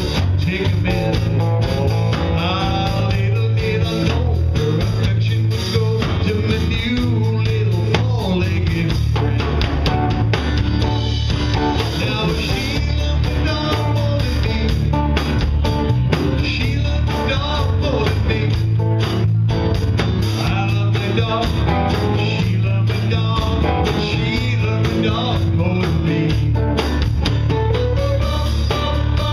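Live blues-rock band playing: a man singing over a strummed acoustic guitar and an electric guitar, with drums and a steady low end.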